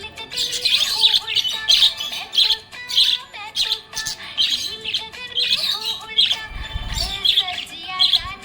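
Budgerigar chirping and warbling in a rapid run of short, high chirps, several a second, over faint background music. A brief low rumble about six and a half seconds in.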